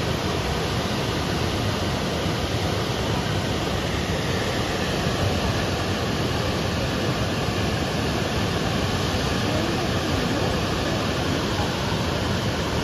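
Ethipothala Falls running in full flow: a steady rush of water pouring over the rock ledges into the pool below, even and unbroken throughout.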